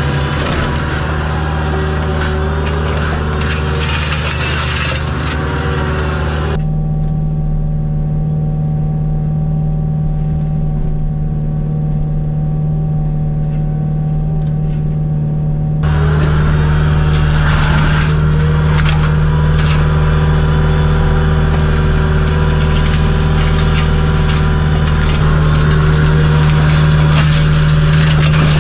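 Kubota U55-4 mini excavator's diesel engine running steadily under load, driving a hydraulic flail mower that shreds brush with continuous crunching and cracking of wood. For about nine seconds in the middle, the shredding drops away and only the machine's steady hum is heard; then it resumes.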